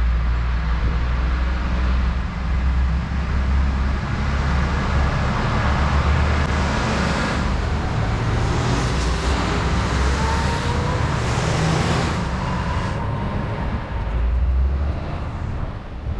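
Heavy trucks driving past one after another on a main road, a steady low engine rumble with tyre noise that swells as they go by.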